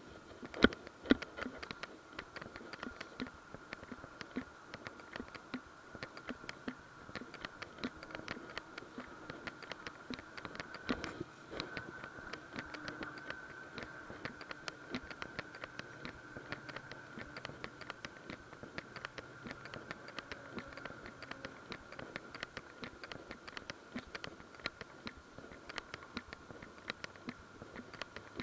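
Dense, irregular light clicking and rattling from a moving camera and its mount being jostled, with a few louder knocks about a second in, over a faint steady high whine.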